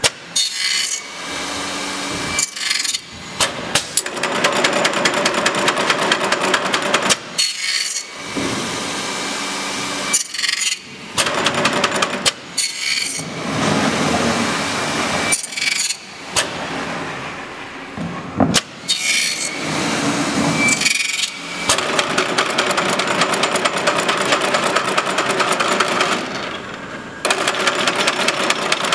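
Automatic channel letter bending machine working an aluminum profile strip: runs of fast, rattling mechanical ticking, broken every few seconds by sharp clacks and short pauses.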